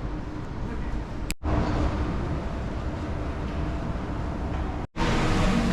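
Steady low rumbling noise, cut off abruptly twice: about a second and a half in and near the end.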